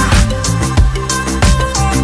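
Background music with a fast, steady drum beat and held notes.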